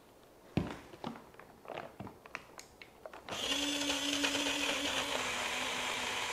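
A few knocks as the BlendJet portable blender's jar is handled and stood upright on the counter. Then, about three seconds in, its battery-powered motor starts and runs steadily for about three seconds, blending a thick mix of frozen fruit, with a steady hum and hiss.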